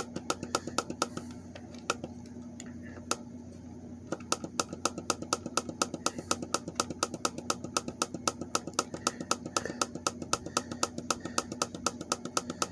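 Spartus digital alarm clock's time-set buttons clicking as they are pressed to reset the time, a few clicks at first, then an even run of about five clicks a second from about four seconds in. A low steady hum sits underneath.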